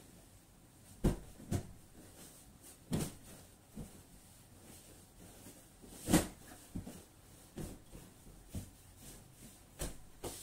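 Pillows being shaken, plumped and set down on a bed: a scattered series of soft thumps, the loudest about six seconds in.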